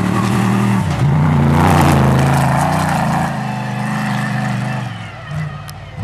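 Rally-raid car's engine running hard as the car accelerates past on a sandy track, the note climbing and then dropping about three seconds in, before fading away near the end.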